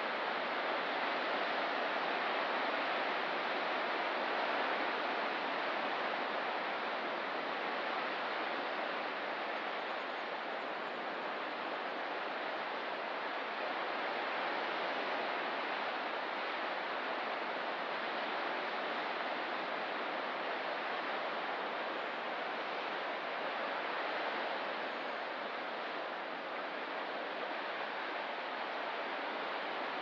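Ocean surf: a steady rushing wash of waves that swells and eases slowly, with no distinct single crashes.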